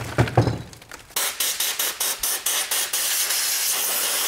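A couple of dull thumps, then a compressed-air blow gun blasting dust and grit out of an RC car's chassis. The hiss starts about a second in as a string of short, quick bursts and turns into a steady blast about three seconds in.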